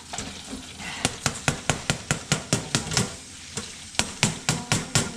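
A metal fry basket being shaken and knocked against the fryer pot to drain off the oil: quick, even metal knocks about five a second, with a short pause about three seconds in.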